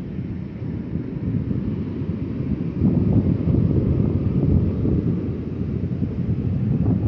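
Wind buffeting the phone's microphone: a steady low rumble that grows stronger about three seconds in.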